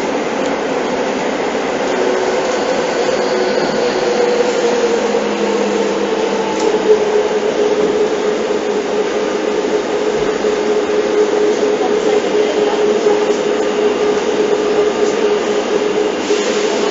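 Seibu 6000 series electric train running through a subway tunnel, heard from inside the car: a steady rumble of wheels and rails with a steady motor whine over it.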